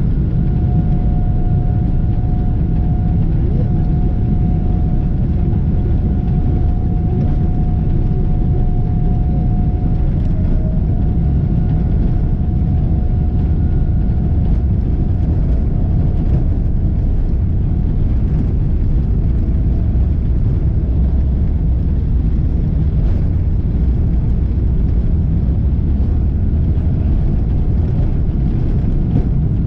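Boeing 777-300 airliner taxiing, heard inside the cabin: a steady low rumble from the engines and the wheels rolling on the taxiway. A thin steady whine sits over it and fades out about halfway through.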